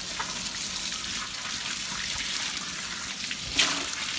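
Water from a garden hose spraying onto a wet dog's coat and splashing onto wooden boards: a steady hiss, with a brief louder splash near the end.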